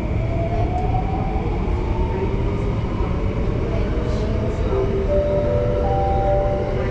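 Downtown Line MRT train pulling away from a station, heard from inside the carriage: a steady low rumble with an electric motor whine that rises in pitch as the train gathers speed, settling into several steady tones near the end.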